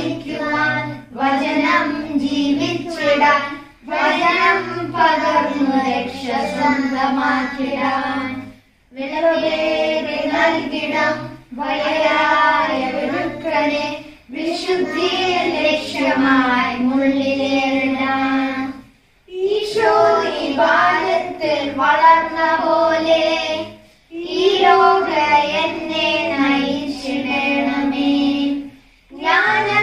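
A family singing a devotional hymn together, children's voices to the fore with a woman's voice, in phrases of a few seconds broken by short breaths.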